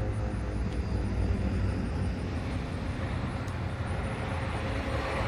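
Federal Signal 2001-130 rotating electromechanical warning siren at the end of its one-minute alert test: its steady tone fades within the first second or so as it winds down, leaving a low rumble.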